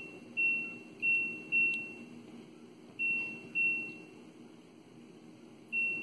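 LG TurboDrum washing machine's control panel beeping at each press of the wash-time button: six short, high, single-pitch beeps, three quickly, then two, then one near the end, as the wash time steps round to switch the wash stage off. A faint low hum runs underneath.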